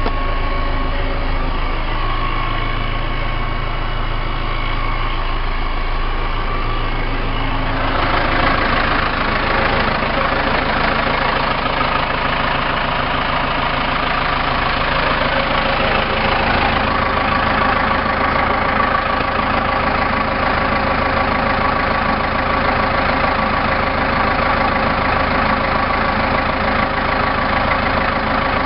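Case 580M backhoe loader's diesel engine running steadily; about eight seconds in the sound gets a little louder and harsher, and about halfway through its tone changes again.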